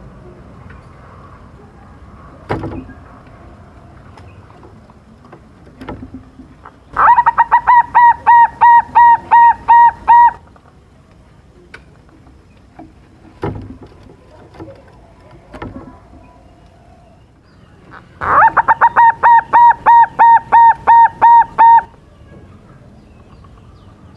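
Zebra dove (silver perkutut) cooing: two loud bouts of rapid, evenly repeated notes, about a dozen notes and some three seconds each, roughly ten seconds apart. A few soft knocks fall in the gaps.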